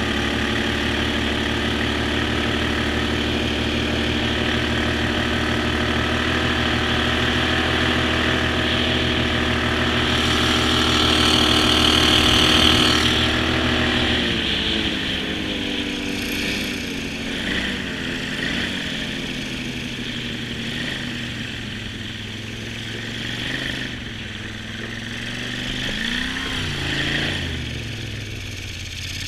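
Jon boat's outboard motor running hard at speed, then throttled back about halfway through to a lower, slower run, with a short rev up and down near the end.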